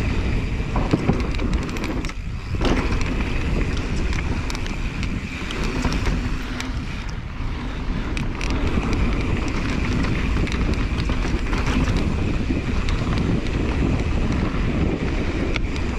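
Rocky Mountain Element C70 full-suspension mountain bike riding fast down a dirt trail: tyre noise on dirt and wind on the microphone, with frequent short rattles and knocks from the bike over the terrain and a high steady buzz that comes and goes.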